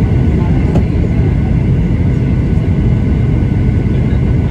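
Cabin noise of a Boeing 737-800 on approach, heard from a window seat over the wing: its CFM56-7B engines and the airflow make a steady, loud rumble with faint steady whining tones above it.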